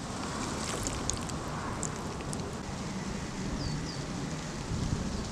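Steady outdoor background noise with wind on the microphone and a low rumble, a few faint ticks, and two short high chirps about three and a half seconds in.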